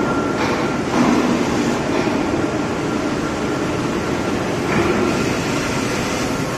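Induction shaft-hardening machine running: a steady mechanical noise with a faint thin high tone, swelling slightly about a second in and again near the end.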